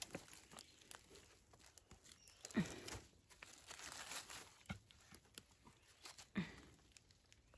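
Faint rustling and crinkling with scattered small cracks, as of dry leaves and paper being handled. Three brief low sounds slide down in pitch, about two seconds apart.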